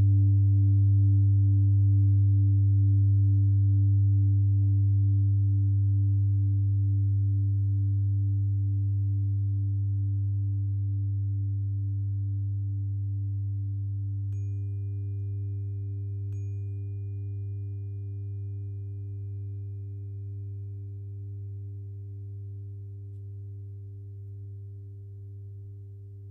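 Meditation sound-bath of an old singing bowl ringing out over a deep steady tone, with a wavering, pulsing mid tone, all slowly fading. About halfway through, a 396 Hz tuning fork is struck twice in quick succession, two light ticks, and its pure steady tone joins the ring.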